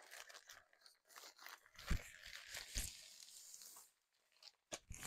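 Plastic poly mailer bag being torn open and crinkled, with the clear plastic bag inside rustling as a packed garment is pulled out. There are two dull thumps about two and three seconds in.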